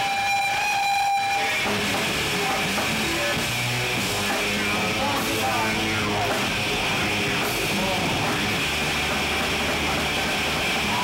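Live loud punk band: a sustained ringing tone for about the first second and a half, then the full band comes in with distorted guitars and drums and the singer shouting into the microphone.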